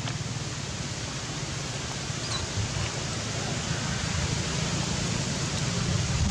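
Wind buffeting the microphone outdoors: a steady low rumble with a hiss over it, growing louder toward the end.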